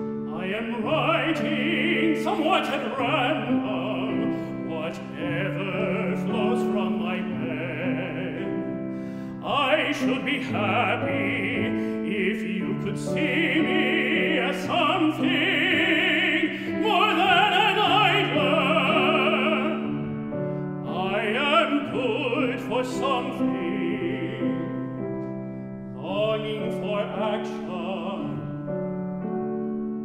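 Classically trained tenor singing an art song with wide vibrato, accompanied by piano. Several sung phrases are broken by short gaps where the piano carries on alone, notably around nine seconds and again near twenty-five seconds.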